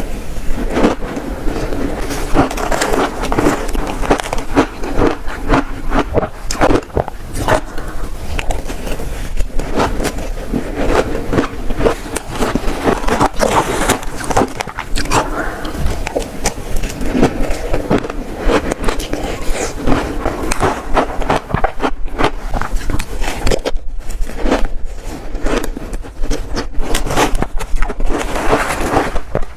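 Close-miked biting and chewing of frozen shaved ice: a dense, continuous run of crunches and crackles.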